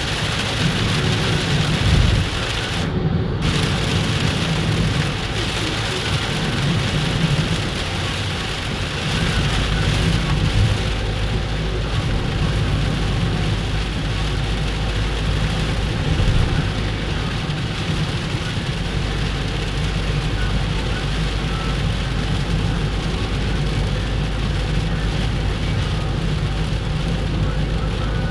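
Heavy rain falling steadily, with a continuous low rumble underneath.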